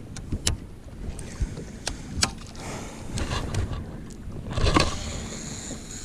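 Sharp clicks of a baitcasting rod and reel being handled, then a cast about three-quarters of the way through: a swish followed by a high whir as line pays off the spool. Wind rumbles on the microphone underneath.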